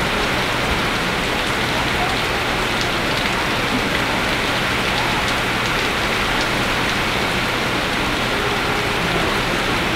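Heavy rain pouring down steadily, with scattered drops ticking on nearby surfaces.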